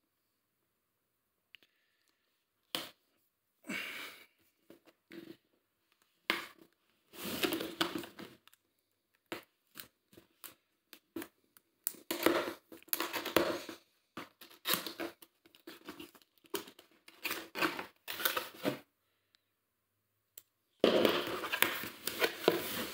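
A cardboard retail box being cut open with a folding pocket knife: short bursts of slicing and tearing at the seals and cardboard scraping, with quiet pauses between. Near the end comes denser, louder rustling as the sleeve and flaps are pulled open.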